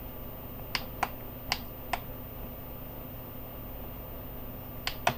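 A handful of sharp plastic clicks and taps as the ultrasonic diffuser's plastic housing and water tank are handled: four in the first two seconds, two more near the end. A steady low hum runs under them.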